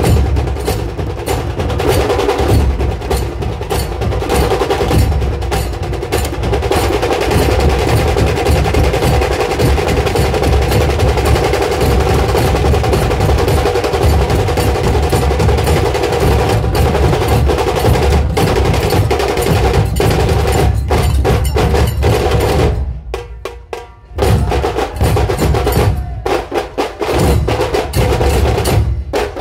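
Dhol-tasha troupe drumming: large barrel drums and smaller drums beaten in a fast, continuous, loud rhythm. The drumming breaks off for about a second roughly three-quarters of the way through, then picks up again with a few short stops near the end.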